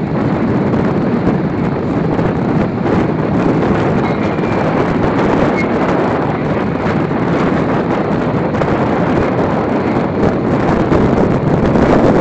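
Steady loud rush of wind on the microphone over the running noise of a moving train.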